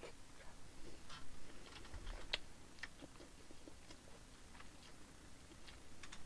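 Faint chewing of a mouthful of food, with soft scattered mouth clicks and smacks; the sharpest click comes a little past two seconds in.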